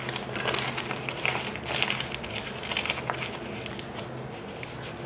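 Sheet of paper crinkling and rustling in irregular crackles as hands fold it around a small bundle; it thins out near the end.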